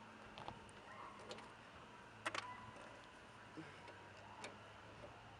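A few faint, scattered clicks of plastic trunk-carpet clips being worked loose by hand, the sharpest about two seconds in.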